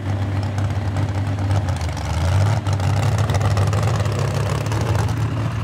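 A pulling truck's engine running with a steady low drone, slightly louder a little past two seconds in.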